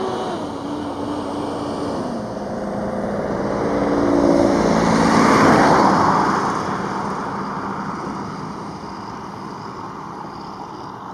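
Jet engines of a large jet air tanker passing low overhead. A falling whine comes in the first two seconds, then the roar builds to its loudest about five to six seconds in and fades away.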